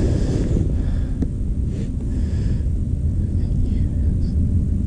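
Wind buffeting the microphone, a steady low rumble, with a faint click about a second in.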